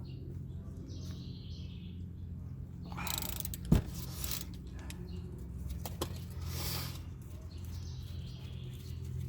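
Hand-tool work on a car's front brake caliper bracket: one sharp clank about four seconds in and a lighter click near six seconds, with two spells of rustling noise, over a steady low hum.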